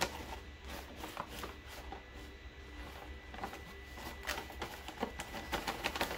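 Paper gift bag rustling and crinkling as a hand puppet rummages inside it, with scattered light handling clicks that grow busier near the end.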